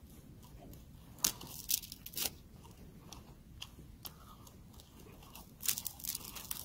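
A person biting and chewing fire-grilled squid close to the microphone, with sharp crunches in a cluster about a second in and again near the end.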